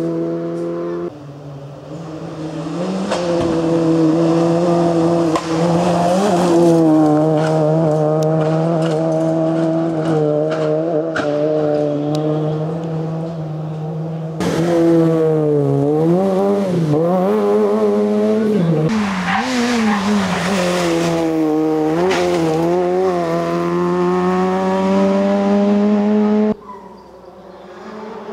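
Fiat Cinquecento rally car's engine held at high revs on a stage, the revs dropping and climbing again several times through gear changes and corners in the middle. The sound jumps abruptly about a second in, around halfway and near the end.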